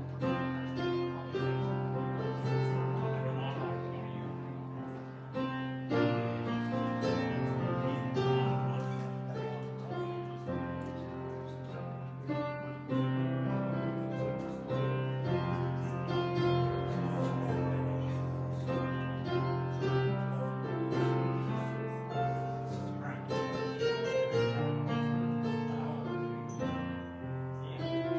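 Keyboard instrument with a piano sound playing slow, sustained chords, with held bass notes that change every second or two.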